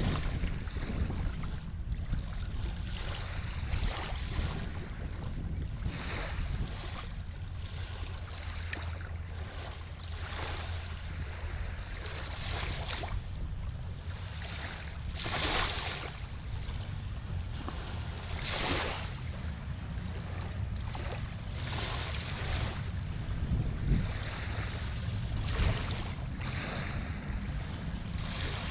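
Small waves lapping and splashing at the water's edge every second or two, two splashes louder in the middle, over a steady low rumble of wind on the microphone.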